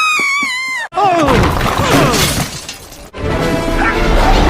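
Cartoon sound effects over music: a high, held scream falls slightly and cuts off abruptly just under a second in. A noisy crash follows, with a jumble of sliding cartoon effects.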